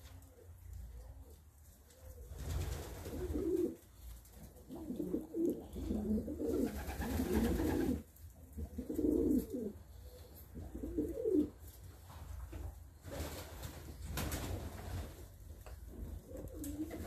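Domestic pigeons cooing, repeated low-pitched coos, with a few spells of rustling noise in between.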